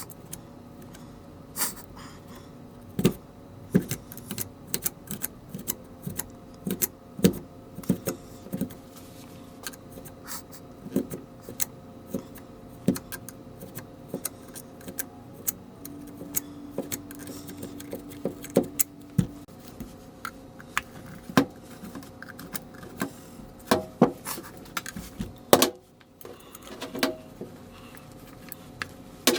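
Irregular light metallic clicks and clinks, many short knocks at uneven spacing, over a faint steady hum.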